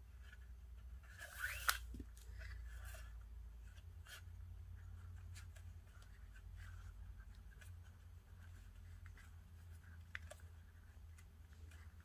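550 nylon paracord being pulled and worked through a knot by hand: faint rustling and sliding of the cord with scattered soft ticks. About a second and a half in comes a louder brief scrape ending in a sharp click.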